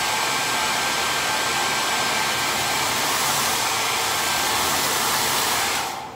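Handheld blow dryer running steadily, its nozzle pushed into a plastic bag tied over the head as a makeshift hooded dryer; it switches off near the end.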